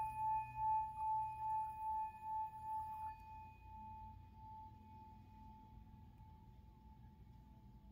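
Hand-held singing bowl ringing with one steady tone that pulses in loudness, then drops and fades away slowly after about three seconds. It is being sounded for sound cleansing.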